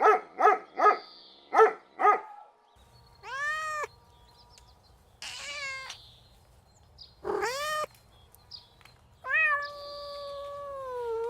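A dog barking about seven times in quick, even succession, then a cat meowing four times, the last meow long and slowly falling.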